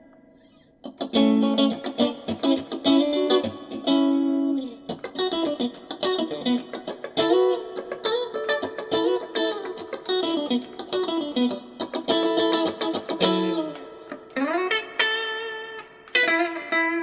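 Fender Stratocaster electric guitar with a raw, dry sound, recorded on a mobile phone. A chord dies away at the start, then about a second in a run of picked single notes and chords begins, with string bends and slides.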